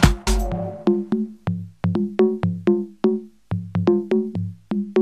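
Electronic dance track: the kick drum and hi-hats drop out about half a second in, leaving a sparse rhythm of short, clicky percussive synth notes that each die away quickly, about three to four a second.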